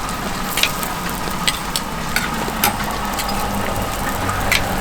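Glutinous-rice hotteok frying in oil on a hot griddle, a steady sizzle, with a handful of sharp clicks scattered through it.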